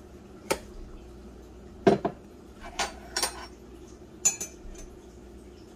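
A metal spoon and a ceramic mug clinking and knocking against each other and the countertop as they are handled: about five sharp clinks. The loudest is a double knock about two seconds in, and a later clink rings briefly.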